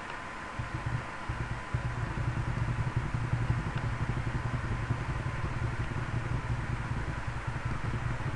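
A low, steady mechanical hum with a fast pulsing texture, getting louder about a second and a half in, with a faint steady high tone above it.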